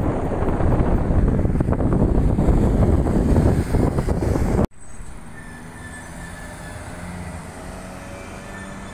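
Loud rushing wind and road noise from a moving car. It cuts off abruptly a little over four seconds in, giving way to a quieter steady hum of engine and tyres.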